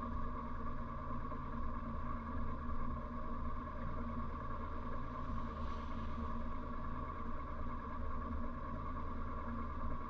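1957 Morris Minor's small four-cylinder engine idling steadily, heard from inside the car's cabin.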